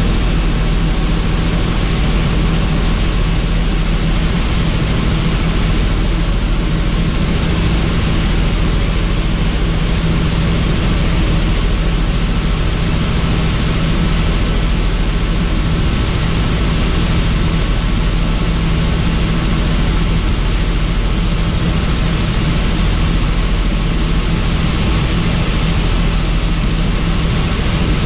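Helicopter in flight: steady, loud rotor and engine noise with a deep constant hum that does not change.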